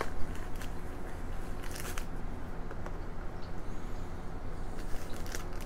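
Scattered rustles and small clicks of a knife box and its packaging being handled during an unboxing, over a steady low rumble.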